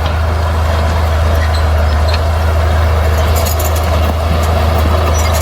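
Heavy diesel engine of earthmoving machinery running steadily: a constant deep drone with a steady hum above it.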